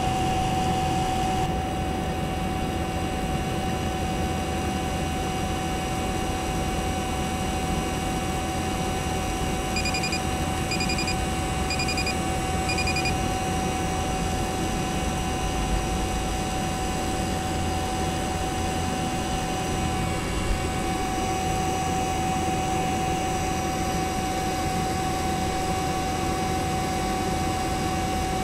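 Refrigeration vacuum pump running steadily, pulling a vacuum on an air conditioner's refrigerant circuit: an even mechanical drone with a steady hum-like tone through it. About ten seconds in, four short high electronic beeps come about a second apart.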